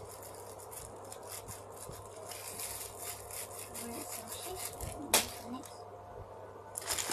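Rubbing and rustling of objects being handled, with one sharp click about five seconds in.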